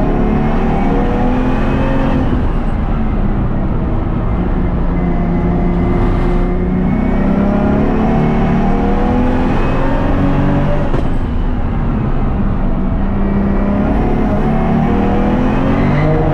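Single-turbo, 800 hp BMW S55 inline-six race engine under hard acceleration on track. Its pitch climbs steadily through each gear, then drops back at roughly four-second intervals as the car shifts and brakes for corners.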